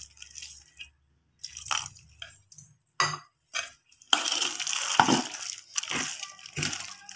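Thick idli batter being mixed by hand in a metal vessel, with a little water just worked in: irregular wet strokes that become denser and more continuous from about four seconds in.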